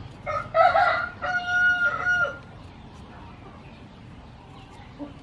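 A rooster crowing once: a few short broken notes, then a long held note that drops in pitch at the end.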